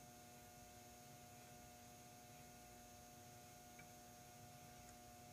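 Near silence: a faint steady electrical hum, with a couple of faint ticks about four and five seconds in.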